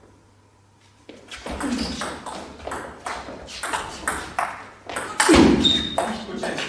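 Table tennis rally: the plastic ball clicks sharply as it is struck back and forth by the rackets and bounces on the table, starting about a second in after a short hush.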